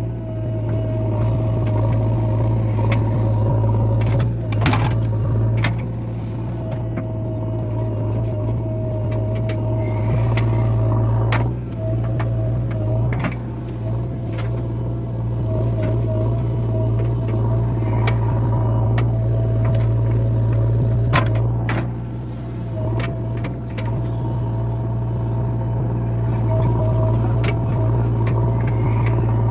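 JCB digger's diesel engine running steadily under a constant steady whine, with scattered sharp clanks and knocks.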